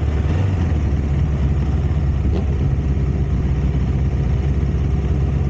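Motorcycle engine running at low speed as the bike rolls slowly, a steady low rumble.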